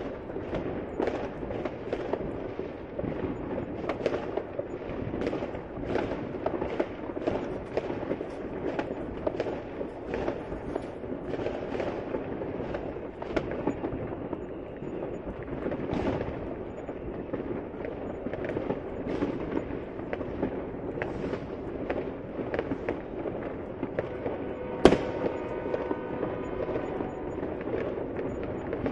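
Fireworks going off continuously: many sharp bangs and crackles, several a second, over a steady rumble of distant explosions. About 25 seconds in comes one louder, sharper bang followed by a few seconds of ringing tone.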